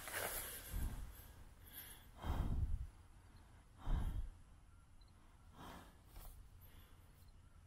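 A series of short, breathy blows or snorts, about five of them a second or so apart, the loudest two in the middle, fading to fainter ones near the end.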